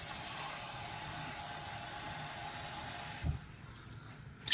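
Steady rush of water being added to a cooking pot, cutting off abruptly about three seconds in with a soft knock. A louder burst of pouring starts right at the end.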